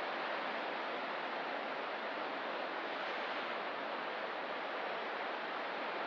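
Ocean surf washing steadily on the coast: an even, unbroken hiss with no separate wave crashes standing out.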